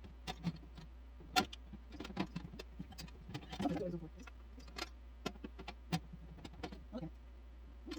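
Dishes clinking and knocking as plates, bowls and cups are set into the rack of a countertop portable dishwasher: scattered sharp clicks, with a busier clatter about halfway through.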